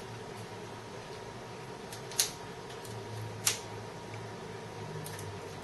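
Two sharp plastic clicks, about a second and a half apart, from a spring-loaded finger-prick lancing device, over a steady low room hum.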